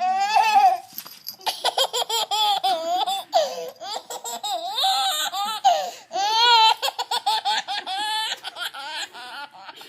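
Baby laughing hard: rapid bursts of giggles and high squeals, with longer shrieks of laughter about half a second and six and a half seconds in.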